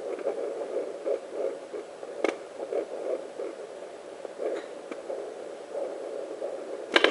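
Fetal Doppler on a pregnant belly, giving out a rhythmic whooshing pulse of blood flow from the baby's heartbeat and the placenta. Two short sharp clicks come through, about two seconds in and near the end.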